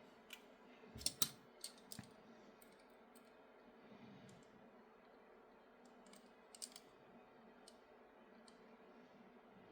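Scattered light clicks and taps of small parts being handled while an RC car's rear axle with its washers is fitted into a 3D-printed plastic chassis, the loudest cluster about a second in and a few more near the middle and end.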